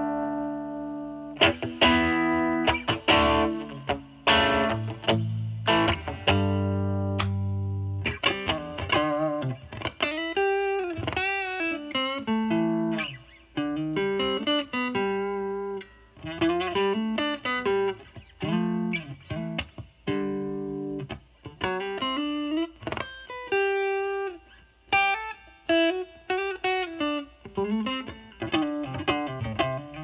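Stratocaster electric guitar with single-coil pickups, played through a DOD FX102 Mystic Blues Overdrive pedal with its drive at about 8–9 o'clock into a Marshall Valvestate amp's overdrive channel: a light overdriven crunch. A few chords ring out, then blues single-note lead lines with string bends.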